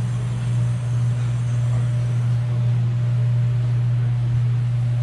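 A machine running with a steady, loud low hum.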